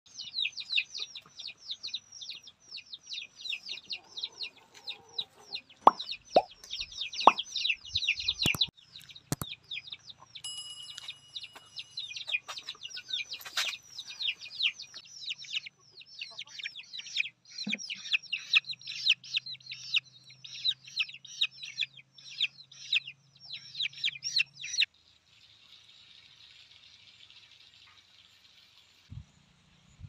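Chicks peeping rapidly and without a break, a quick run of high falling chirps that stops about 25 seconds in. A few sharp knocks come between about 6 and 9 seconds in, and a faint hiss follows the peeping.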